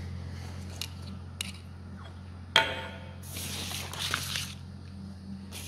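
A sheet of paper sliding and rustling across a granite surface plate, just after a sharp knock of something set down on it, over a steady low hum.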